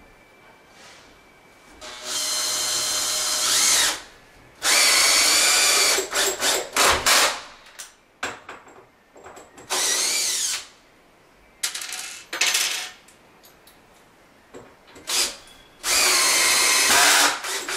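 Cordless drill driving 3-inch screws into the door's top plate: several runs of one to two seconds each, the motor whine rising in pitch as it spins up, with clusters of short trigger bursts in between.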